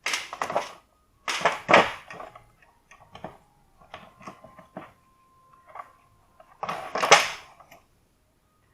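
Hardened old rubber valve cover gasket being pulled out of the valve cover of a Volkswagen Touareg 3.6 engine: three bursts of rubbing and scraping with small clicks between them. The gasket has gone hard with age and is breaking into pieces.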